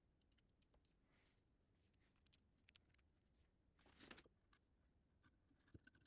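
Near silence, with faint scattered small clicks and a soft brief scrape about four seconds in: quiet handling of the wooden box and its drawer spring.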